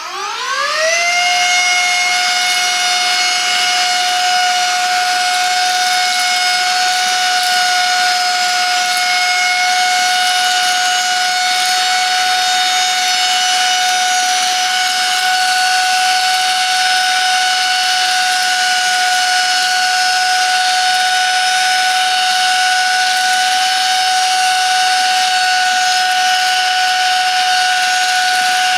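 Silvercrest SHM A1 mini cordless handheld vacuum cleaner switched on: its motor spins up with a rising whine in about a second, then runs at a steady high-pitched whine with an airy hiss.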